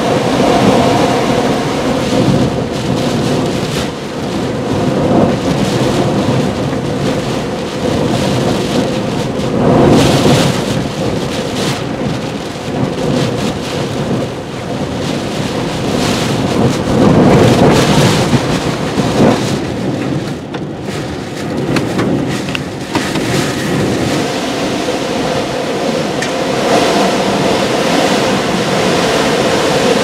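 Tropical-storm-force wind gusting hard with driving rain: a loud, continuous rushing that surges about ten seconds in and again around seventeen seconds.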